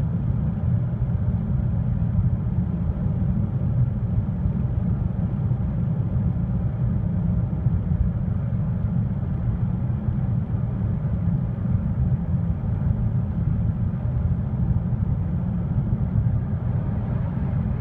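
Steady interior noise of a Lada Vesta cruising at about 100 km/h: an even low rumble of road and engine heard inside the cabin.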